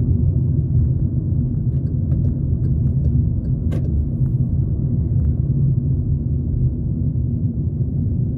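Steady low rumble of a car driving along a city road, heard from inside the cabin: road and engine noise. A single faint click a little under four seconds in.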